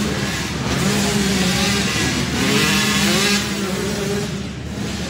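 Several two-stroke 85cc youth dirt bikes revving as they race past, their engine pitch rising and falling with throttle and gear changes; the sound drops off briefly near the end.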